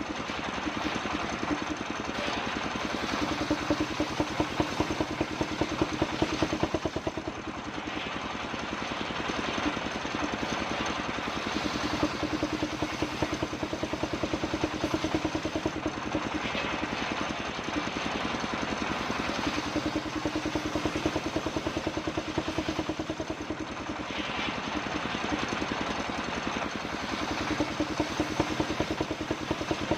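Engine-driven homemade circular saw running steadily while ripping kapok wood into boards. The engine's firing is even throughout, and the sound swells and eases every few seconds.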